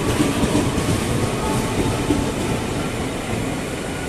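An electric KRL commuter train running along the platform, a steady noise of wheels on the rails.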